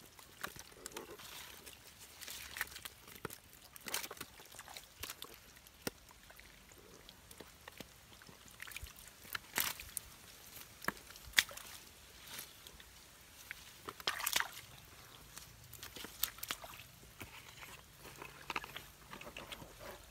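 Hands groping in shallow muddy water, with irregular sloshing, splashing and dripping as catfish are felt for and grabbed in the mud.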